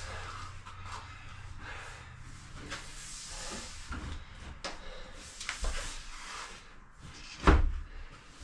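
Scattered knocks and clatter, with one louder thump about seven and a half seconds in, over a low hum that fades out about three and a half seconds in.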